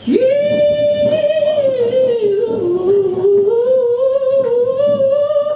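Goat screaming one long held note that sounds like singing. The note dips in pitch around the middle and climbs again near the end.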